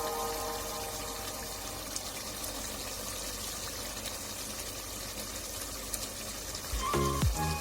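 Beef karahi cooking in the pan: a steady faint hiss of sizzling liquid with small pops. Music comes in near the end.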